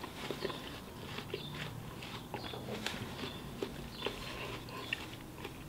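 A man chewing a mouthful of watermelon with his mouth closed: quiet, scattered wet clicks and smacks.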